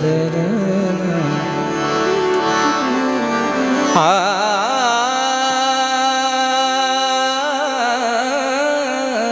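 Marathi Warkari bhajan music: a melody moves in stepped notes for about four seconds, then a male singer holds a high note with wide vibrato through to the end.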